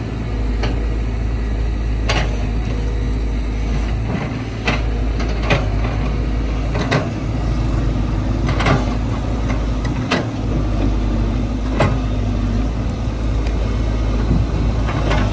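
Heavy machinery engine running steadily at a low pitch, with sharp knocks coming irregularly about every one to two seconds.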